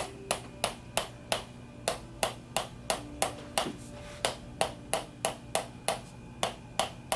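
Hand-held chiropractic adjusting instrument firing a steady series of sharp clicks, about three a second, as it adjusts a hip that is a little off on the right side.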